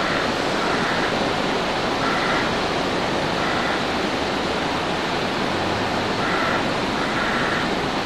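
Steady rushing of sea surf and wind.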